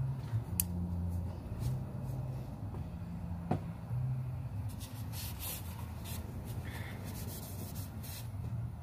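Light rubbing, rustling and small clicks of hands working on parts, over a steady low hum.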